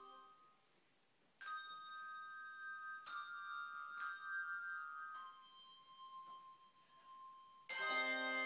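Handbell choir playing: the last of a chord dies away, then a few single handbell notes and pairs are struck a second or so apart, each ringing on. Near the end many bells are struck together in a loud full chord.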